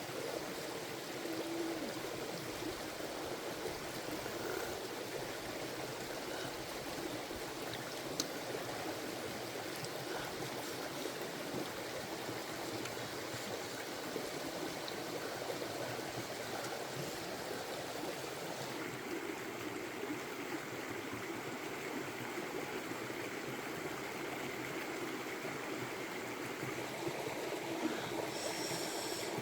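Steady rushing and trickling of a forest stream running over rocks.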